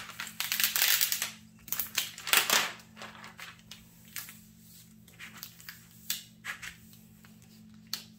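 Thick plastic cover film on a diamond-painting canvas crinkling and rustling as hands press and smooth the canvas flat. The crinkling is loudest through the first few seconds, then thins to lighter, scattered rustles.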